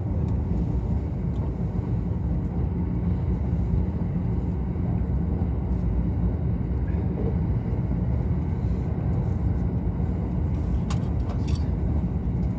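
Steady low rumble of an electric commuter train running at speed, wheels rolling on the rails, heard from inside the upper deck of a bilevel Green car. There are a couple of brief faint clicks near the end.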